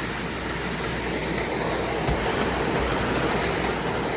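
Grain auger running steadily with a low hum as a wagon of corn unloads into it.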